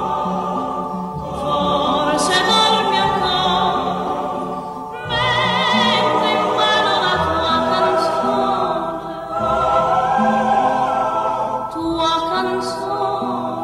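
Background music of choral singing: several voices holding long notes with a wavering vibrato over a low sustained line.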